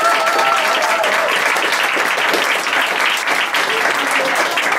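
Audience and performers applauding in a small theatre: a dense, steady clapping that keeps going.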